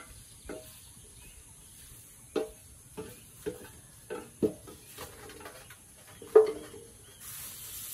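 Chopsticks knocking against a metal cooking pot as tea leaves are lifted out onto a bamboo tray: about nine sharp knocks, each with a short ring, the loudest about six seconds in. Just before the end a soft rustling of leaves on the tray begins.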